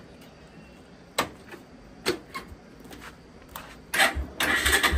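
A few light clicks, then about four seconds in the single-cylinder engine of a Bajaj Pulsar 220 motorcycle starts on the electric starter at the first press and settles into running with a steady low pulse.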